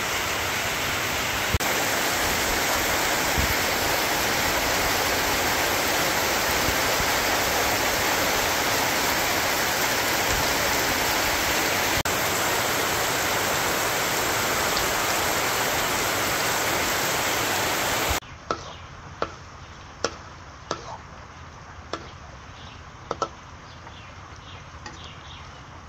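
Heavy rain falling steadily, a dense even hiss. About 18 seconds in it cuts to a much quieter rain with scattered sharp drips of water.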